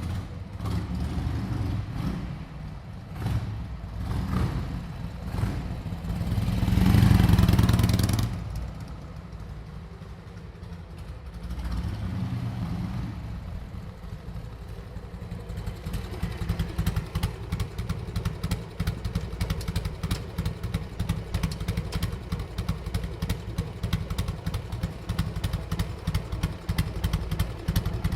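2001 Harley-Davidson Sportster 883 Roadster's 883 cc air-cooled V-twin running through a Screamin' Eagle Pro-Pipe two-into-one exhaust: blipped several times, with one long, loud rev about six to eight seconds in and a smaller one a few seconds later. It then settles into a steady, pulsing idle.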